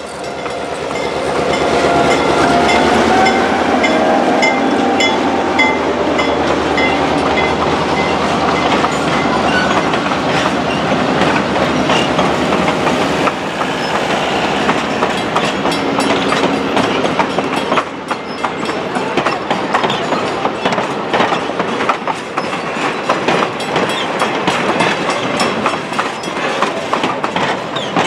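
Southern Pacific SD9 diesel locomotive, a 16-cylinder EMD 567, passing close by with its engine running. A string of passenger cars then rolls past with a steady clickety-clack of wheels over the rail joints.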